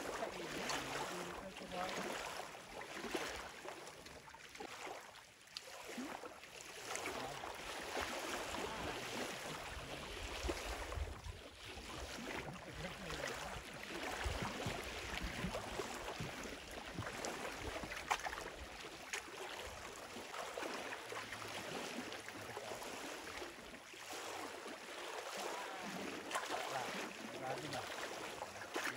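Small lake waves lapping against a wooden dock, a soft wash that rises and falls every second or two.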